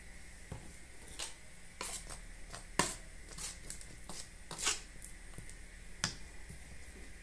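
Scattered light clicks and scrapes, a dozen or so, from a cardboard condensed-milk carton being handled and a metal spoon touching an aluminium cake pan. The sharpest click comes just under three seconds in, with a longer scrape shortly before five seconds.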